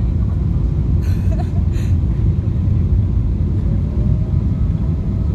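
Steady low rumble of a Boeing 777-200's engines and airflow inside the passenger cabin on short final, with a short hiss about a second in.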